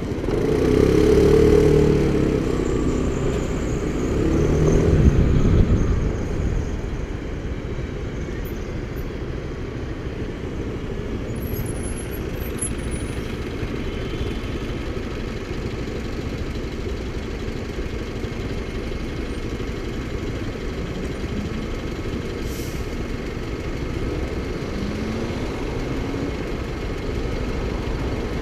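Motorcycle engine idling steadily at a red light, a low even rumble. In the first six seconds passing traffic makes it louder.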